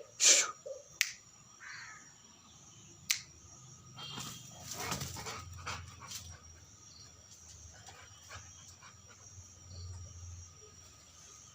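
Rottweiler puppy giving one short, loud bark just after the start, followed by scattered sharp clicks and rustling.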